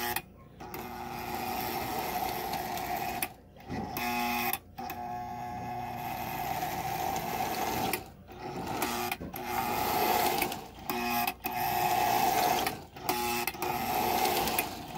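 Lionel 8056 Fairbanks Morse Trainmaster's two electric motors and gears running on the test track, a steady whirring hum broken by several short stops. Freshly cleaned, oiled and greased, the locomotive is running nice and smooth.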